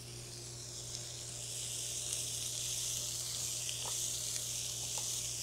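Whole grapes, onions and jalapeño sizzling in butter in a small skillet over raised heat, the sizzle growing louder about two seconds in. A few light ticks come from a spatula stirring the pan.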